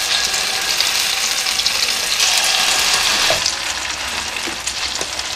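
Butter and olive oil frying hot in a stainless steel pot: a steady sizzle as a mixture of milk-soaked bread, egg and curd cheese is spooned in and spread. The sizzle eases slightly about halfway through.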